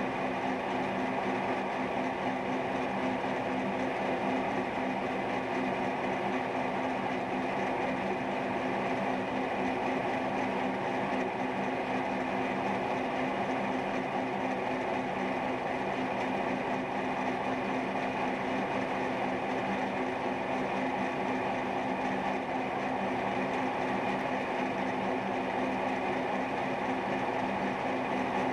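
Milling machine running steadily with a continuous hum, its tilted cutter taking a cut in steel while the rotary table turns the work to form a spherical socket.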